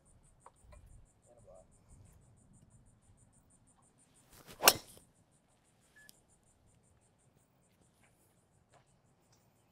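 Sharp crack of a Mizuno ST-Z 220 driver striking a golf ball off the tee, about four and a half seconds in, by far the loudest sound. Behind it, insects chirp in a fast, even, high-pitched pulse.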